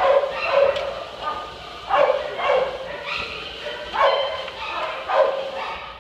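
Dog whining and yelping excitedly while jumping up to greet a man: a string of loud cries that fall in pitch, one every half second to second or so.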